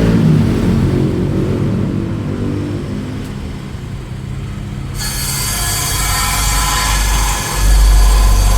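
Woodworking power tool running with a steady low hum. About five seconds in, the sound turns abruptly brighter, with high whining tones, and the hum grows louder near the end.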